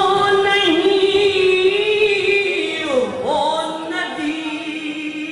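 A man's voice singing Urdu verse in tarannum, the sung recitation of a mushaira, holding one long drawn-out note. Its pitch dips and swoops about three seconds in, then settles a little lower.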